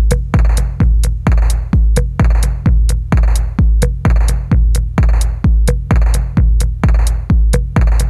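Electronic music with a steady drum-machine beat: heavy kicks about twice a second with lighter hi-hat ticks between them.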